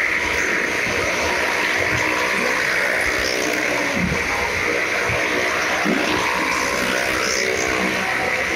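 Car and motorcycle engines running continuously as they circle the wall of a well-of-death drum, a steady drone with a few rises and falls in engine pitch.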